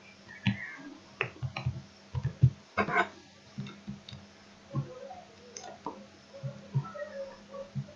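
Computer mouse clicks and desk knocks in an irregular series, about fifteen in all and busiest around two to three seconds in, over a faint steady hum.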